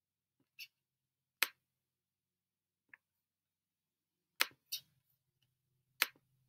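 Computer mouse clicking: about six short, sharp clicks spaced irregularly over several seconds, three of them louder.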